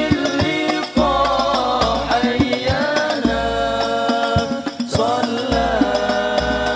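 Banjari ensemble: a group of male voices chanting a sholawat together over rebana hand frame drums beating a fast rhythm with deep low strokes.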